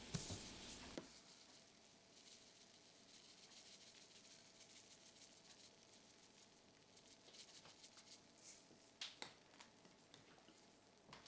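A jar of sesame seeds knocks on a wooden table with a couple of sharp clicks at the start, then there are faint scattered ticks and crackles as the seeds are sprinkled over the stir fry. A few sharper clicks come about nine seconds in.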